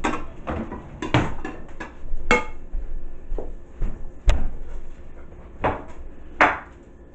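Serving utensil knocking and scraping in a ceramic serving bowl, with plates clinking as they are handled: a run of sharp knocks and clinks, the loudest about four seconds in and again near the end.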